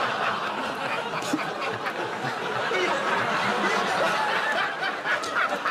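A studio audience and panel laughing together, a sustained wash of many people's laughter and snickers.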